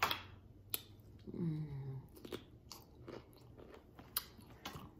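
Crunchy bites and chewing of raw cucumber slices coated in seafood-boil sauce, close to the microphone: about half a dozen sharp crunches, with a short hummed "mm" about a second and a half in.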